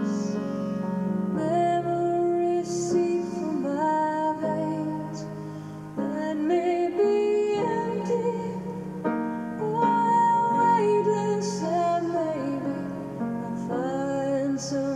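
Music: a woman singing a song, with piano accompaniment.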